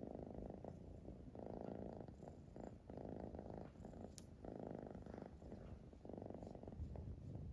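Siamese cat purring while being stroked on the head and chin, the purr swelling and fading about every second and a half.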